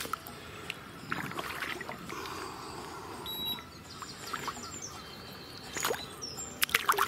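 Water sloshing, splashing and dripping, with scattered knocks and clicks of handling.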